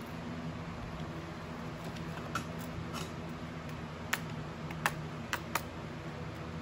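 Clear plastic planner dividers being handled on a small metal ring binder: a handful of light, sharp clicks and taps of plastic against plastic and the rings, most of them in the second half, over a steady low hum.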